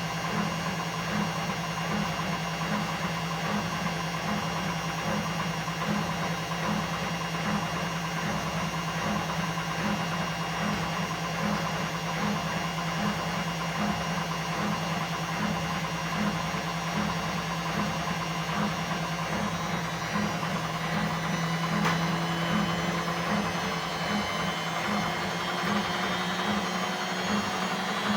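Washing machine running in its spin cycle: a steady motor hum with a pulse repeating about twice a second, over a whir. Late on, a faint tone slowly rises in pitch, with a single click just before it.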